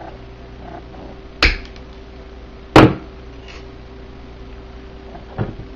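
Three sharp knocks of hand tools and wire on a tabletop as a steel-wire snap is finished with pliers: one about a second and a half in, a louder thud near three seconds, a fainter one near the end. A faint steady hum lies under them.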